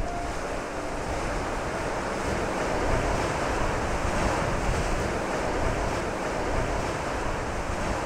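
Steady rushing of ocean surf and wind, a continuous wash of waves with no distinct breaks.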